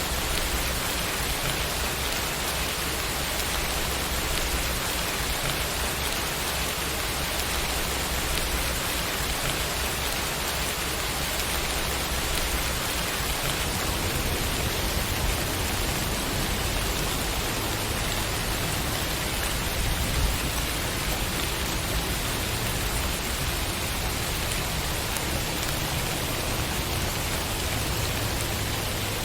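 Steady rain falling on a surface, an even hiss of raindrops, with one slightly louder patter about two-thirds of the way through.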